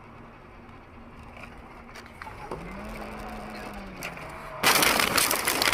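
Road noise inside a car with a faint hum that rises and falls, then, near the end, a sudden loud crash as an oncoming van strikes the car, the impact noise running on for a couple of seconds.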